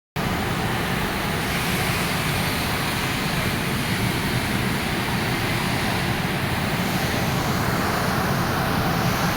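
Steady rushing noise of a workshop machine running at an even level, with no cuts, knocks or changes in pitch.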